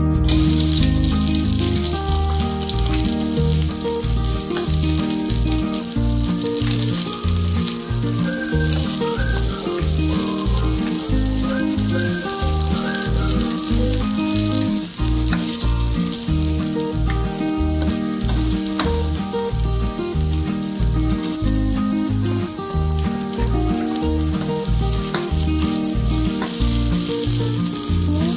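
Food frying in hot oil in a pan, a steady sizzle throughout, with background music underneath.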